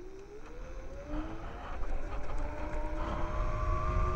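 Kaabo Wolf Warrior X Pro electric scooter's motor whining as it speeds up, the whine rising in pitch over the first few seconds and then holding steady at cruising speed, over low road and wind rumble.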